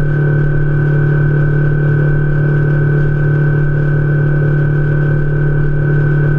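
Boat's outboard motor running at a steady cruising speed, a constant even drone, over the rush of water along the hull.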